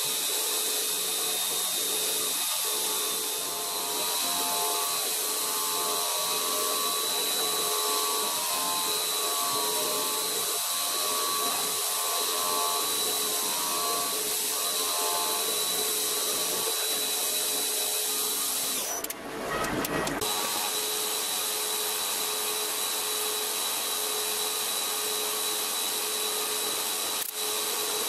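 CNC milling machine spindle running with an end mill cutting an aluminium rod into a taper: a steady machining whine over a constant hiss of coolant spray, at a spindle speed the machinist calls ridiculously low. The sound briefly breaks off about two-thirds of the way through.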